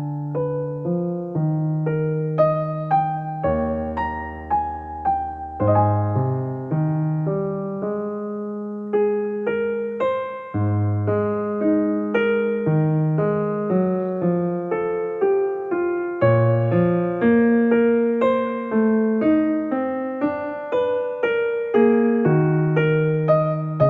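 Soft background music played on electric piano: gentle struck notes and chords.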